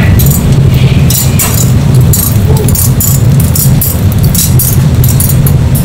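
Wire grill racks loaded with eel fillets clinking and scraping against the metal rails of a gas broiler, in a quick run of short metallic clicks, over a steady loud low rumble.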